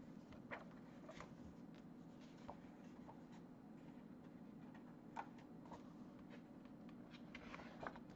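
Near silence: faint, scattered paper rustles and taps as the pages of a picture book are handled and turned, over a low steady room hum.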